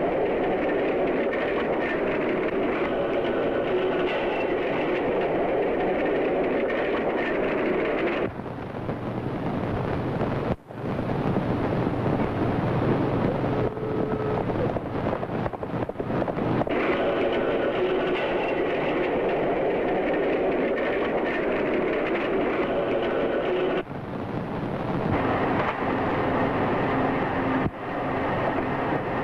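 Horses galloping, a steady clatter of hoofbeats that changes abruptly at several cuts in an old film soundtrack.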